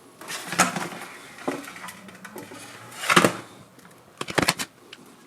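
Irregular handling noise: scattered clicks and knocks with brief rustling, loudest in bunches about half a second in, around three seconds, and a quick run of sharp clicks near the end.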